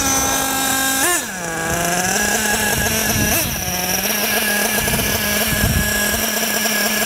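Small nitro glow engine of an RC buggy coming off the throttle and dropping in pitch, with a short throttle blip about a second in, then idling steadily. It is idling hot after a long high-speed pass.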